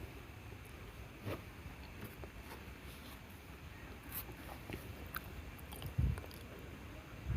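Faint scattered clicks and light taps, like small tools or metal parts being handled, with a dull thump about six seconds in.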